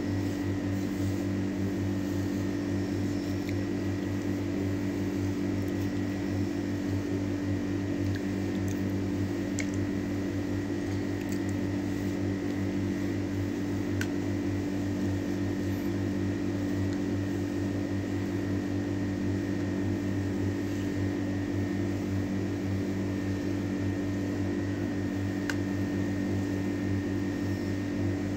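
Steady machine hum with a faint high whine, like a fan or air conditioner running in a small room.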